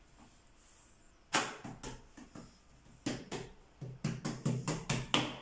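Hands patting and slapping a folded square of feteer meshaltet dough flat on a round wooden board. There are a few slaps, then from about three seconds in a quick run of about five slaps a second.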